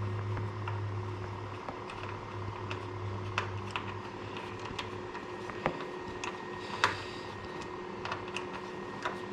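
Scattered light clicks and taps, a few louder than the rest, over a steady low electrical hum that stops about four seconds in.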